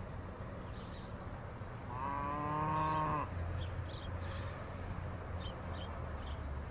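A cow moos once, about two seconds in: a single call of just over a second that rises in pitch at its start.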